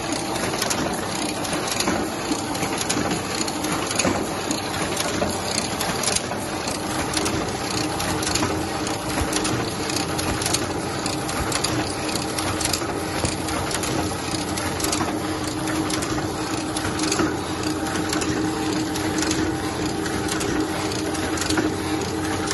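Heidelberg GTO 52 single-colour offset press running while printing envelopes: a dense mechanical clatter with many quick clicks over a steady hum.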